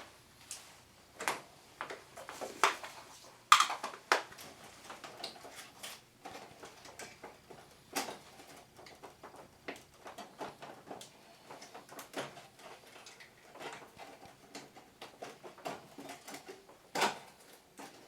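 Irregular clicks and knocks of plastic parts and covers being handled and unclipped while a Panasonic wall-mounted air conditioner with an auto-cleaning unit is taken apart. The sharpest knocks come about three and a half seconds in and near the end.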